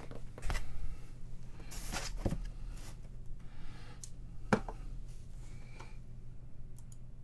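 Light handling noises on a tabletop: a few soft knocks and rustles as a poster is laid down and dice are set on it, the sharpest knock about four and a half seconds in, over a low steady hum.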